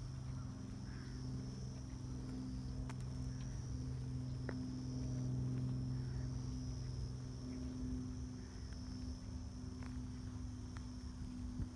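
Autumn insects singing in a steady high chorus over a rice field, with a steady low hum underneath and a few faint ticks.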